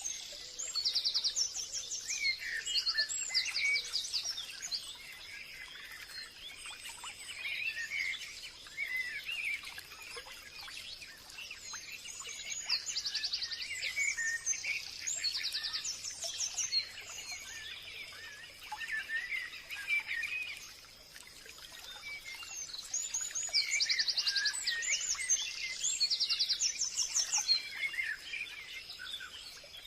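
Several songbirds chirping and trilling in a forest chorus, with calls coming in clusters over a faint, steady high-pitched tone.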